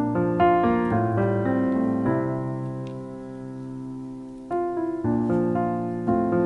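Background piano music: notes and chords struck and left to ring, with a new phrase starting about four and a half seconds in.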